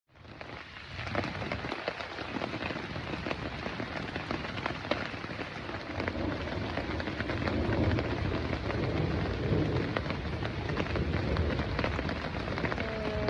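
Heavy rain falling, with many individual drops striking close by, and a low rumble of thunder that swells about halfway through.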